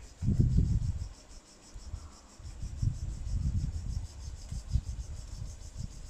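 Insects trilling in a fast, even pulse, under irregular low rumbling bursts that are loudest at the start, drop away for a moment about a second and a half in, and come back.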